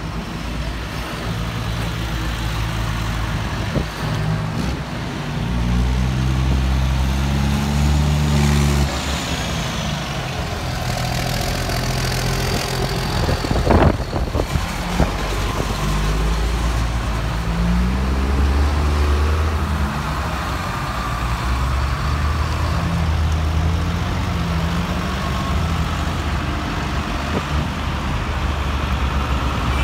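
Diesel engines of large farm tractors, a John Deere and a Case IH among them, running as they drive past one after another. The engine note swells and bends in pitch as each tractor goes by, with a few sharp knocks about halfway through.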